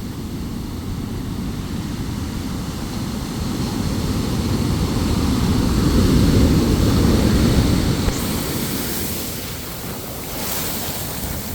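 Large ocean waves breaking, a rushing roar that swells to its loudest about halfway through and then eases, with hissing washes of surf near the end. Wind rumbles on the microphone underneath.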